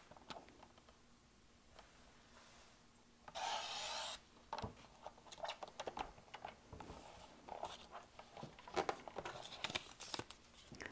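Sliding-blade paper trimmer cutting a small square of patterned paper diagonally: one short rasp a little over three seconds in. Scattered light taps and paper rustling follow as the cut triangles are handled.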